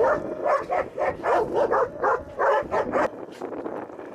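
Several dogs barking and yipping in a rapid string of short calls while raw meat is handed out to them, the calls thinning out and quietening near the end.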